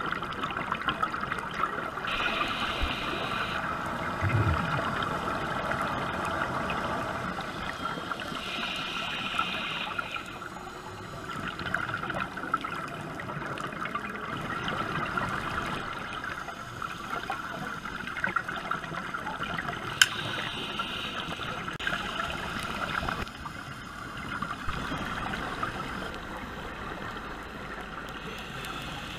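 Underwater sound heard through a diving camera: a steady rush and gurgle of water with louder stretches of scuba exhaust bubbles every several seconds. One sharp click about twenty seconds in.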